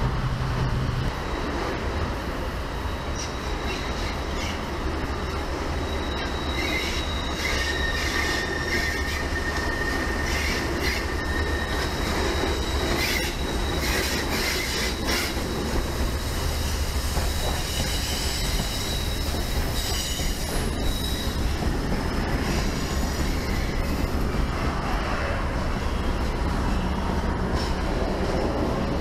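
Steam locomotive and its passenger cars rolling past on the rails, a steady heavy rumble and clatter. A thin, high, steady squeal lasts several seconds about a quarter of the way in, with rapid clicking around it.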